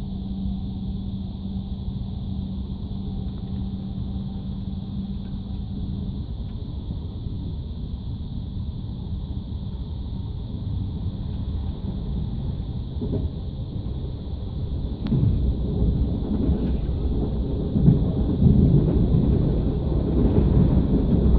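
TGV running noise heard from inside a passenger coach: a steady rumble of the train on the track, with a steady hum that stops about six seconds in. In the last several seconds the rumble grows louder and rougher, with irregular surges.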